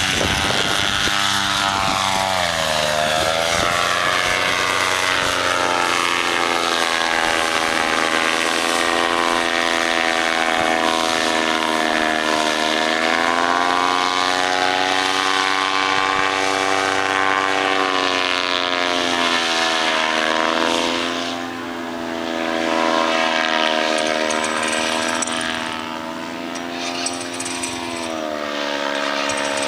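Paramotor engine and propeller running at high power through the take-off run and climb-out. Its pitch dips and rises several times, and it fades briefly twice in the second half.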